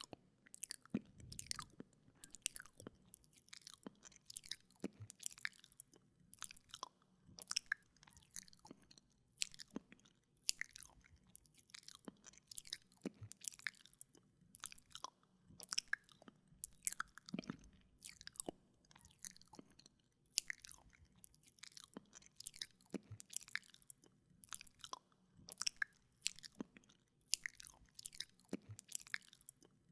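Wet mouth sounds close to a binaural microphone: tongue clicks, lip smacks and licking, a few sharp wet clicks a second in an uneven rhythm.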